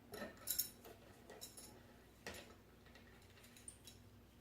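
Faint, scattered clicks and taps of a metal belt buckle and the belt's snap being handled as the buckle is taken off a leather belt.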